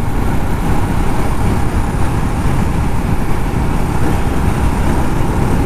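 Jawa Perak motorcycle being ridden, its engine noise buried under steady wind rush on the helmet-mounted microphone.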